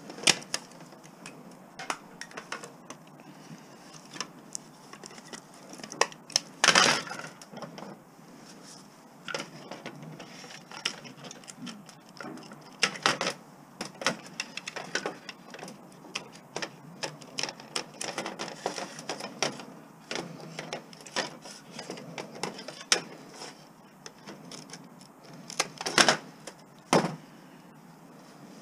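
Irregular clicks, knocks and clatter of small metal and plastic parts being handled and pried apart while electronics are scrapped by hand, with louder clanks about seven seconds in and near the end.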